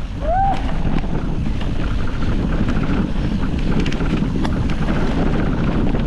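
Wind buffeting the microphone and the rumble of a mountain bike riding fast over a rough dirt single-track trail, with a few sharp rattles about four seconds in.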